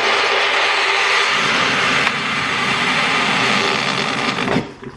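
Breville HotCup hot water dispenser heating and pumping a cupful of water into a mug on its first run, flushing the new pipe: a loud, steady rush with a faint hum, a bit aggressive. It cuts off suddenly about four and a half seconds in as the dispense ends.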